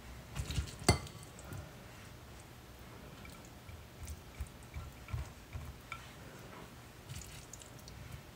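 A slotted serving spoon scooping cooked ground turkey mixture from a glass bowl into a glass meal-prep container: soft scrapes, squishes and light knocks, with one sharp, briefly ringing clink of the spoon against the glass about a second in.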